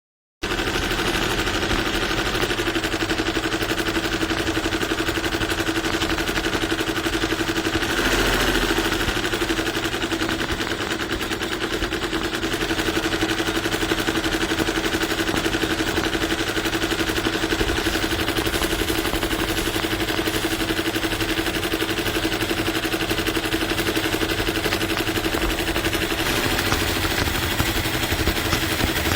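Embroidery machine stitching: a fast, steady mechanical clatter over a constant hum, starting abruptly about half a second in.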